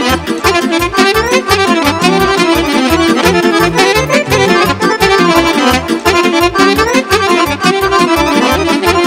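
Live Romanian lăutărească party band playing an instrumental break: fast accordion runs rising and falling over a quick, steady bass beat.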